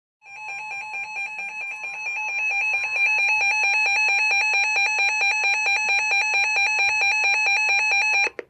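Emergency alert receiver's attention tone: a loud, rapidly pulsing electronic alarm of several pitches, about nine pulses a second. It grows louder about three seconds in and cuts off suddenly just before the end.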